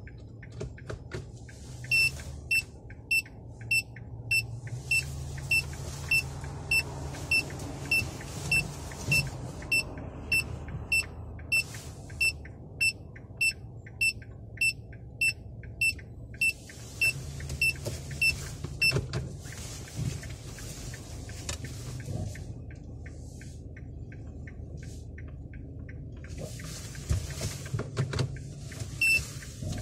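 A car's turn-signal indicator ticking steadily in the cabin, about one and a half ticks a second, over the low hum of the engine. The ticking is loudest through the first half and carries on more faintly later.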